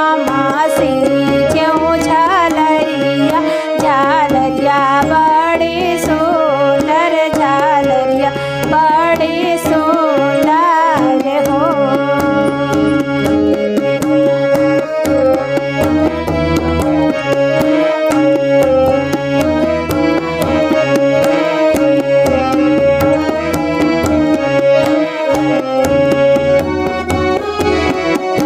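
Harmonium and dholak playing a sohar folk tune, the drum keeping a steady quick beat. A woman's singing is heard in about the first twelve seconds, after which the harmonium and drum carry on alone.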